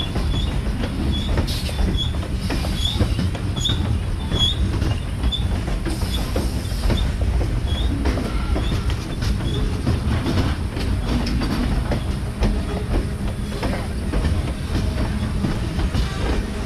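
Freight train of covered hopper cars rolling past close by: a steady low rumble with wheels clicking over the rail joints. Short high squeaks repeat about twice a second over the first half.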